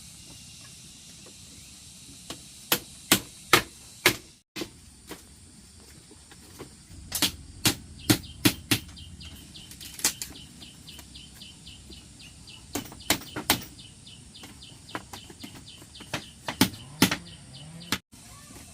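Sharp, loud blows of a hand tool struck again and again in irregular bursts of two to five, as in hammering or chopping during floor-building work.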